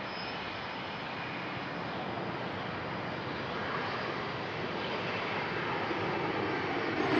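Jet airliner engine noise, a steady rush that builds slowly as the aircraft draws nearer.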